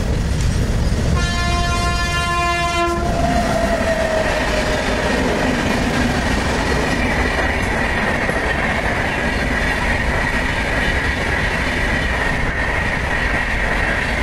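An Indian Railways train sounds its horn in one blast from about one second in to about three seconds. After that comes the steady noise of the train running past on the rails, with a faint high whine above the rumble.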